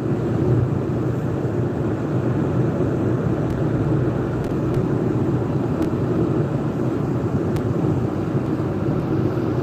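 Steady low rumble of a moving car heard from inside the cabin: road and engine noise.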